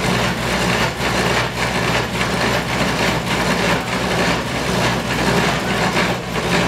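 Baudin clog-copying machine running: a steady motor hum under the continuous rasp of its cutters carving the wooden clog blanks.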